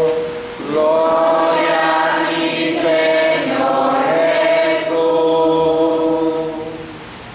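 A small group of women singing together in unison, in long held notes: the congregation's sung response after the Gospel reading. The singing fades near the end.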